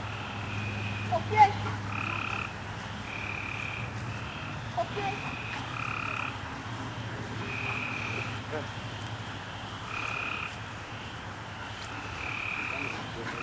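Repeated short buzzing animal calls, each about half a second long, coming every one to two seconds over a steady low hum.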